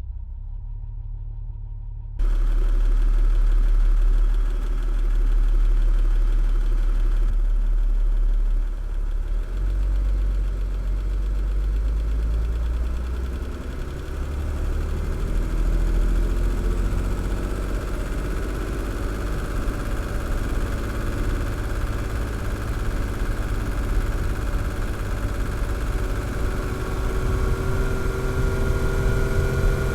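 Jeep Grand Cherokee SUV engine running at a low, steady speed. A muffled low rumble gives way abruptly to the full engine sound about two seconds in. Near the end the engine tones rise slowly as it picks up speed.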